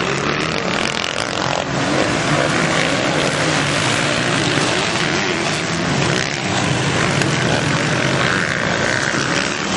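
Motocross dirt-bike engines running and revving together in a continuous loud drone, with one bike's engine note standing out near the end.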